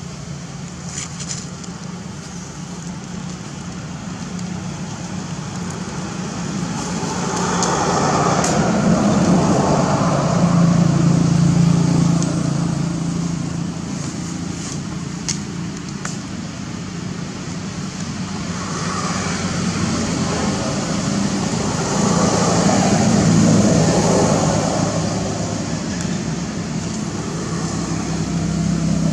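Motor traffic: a steady low engine hum with road noise that swells twice as vehicles pass, once about a third of the way in and again past two-thirds.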